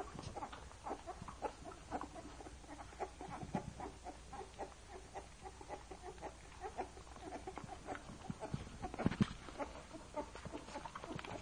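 Litter of 26-day-old puppies nursing: steady wet suckling and smacking, mixed with short squeaks and grunts. A louder cluster comes about nine seconds in.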